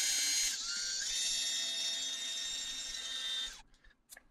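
Cordless drill spinning a small diamond hole saw into brick through a drill guide: a steady high whine over a grinding hiss, which cuts off about three and a half seconds in.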